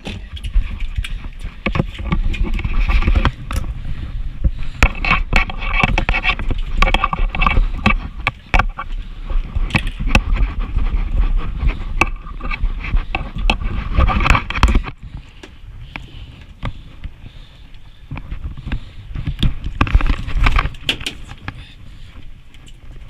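Rubbing, scraping and knocking right at a body-worn camera's microphone over a low rumble, loud and busy for the first fifteen seconds, then quieter, with a few more knocks about twenty seconds in.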